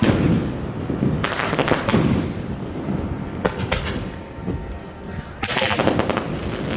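Fireworks going off: rapid strings of sharp bangs and crackles in clusters, at the start, about a second in and again near the end, with lower booms in between.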